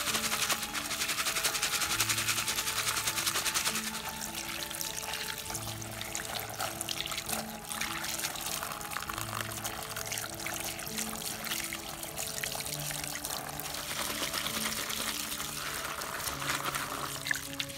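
A stream of water pouring and splashing over chopped red chillies and hands in a plastic colander as they are rinsed, with a slow instrumental melody of held notes playing underneath.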